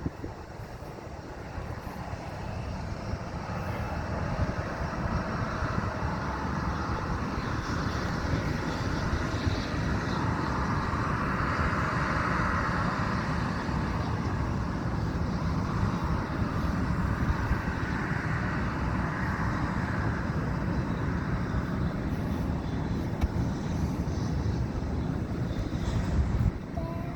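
Airplane taking off: engine noise building over several seconds, loudest about twelve seconds in over a deep rumble, then slowly fading.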